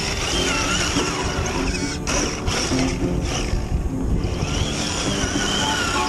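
Background music, with the whine of a Traxxas TRX-4 scale RC crawler's electric motor and gearbox rising and falling over it as the truck climbs a snowbank.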